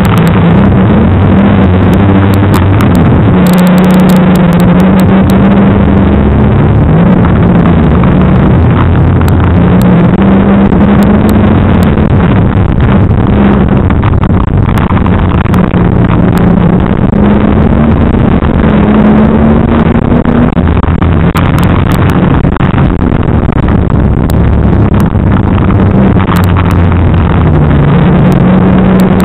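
A banger racing car's engine heard from inside the cabin, very loud, its pitch rising and falling over and over as it revs up and backs off around the track, with scattered sharp clicks.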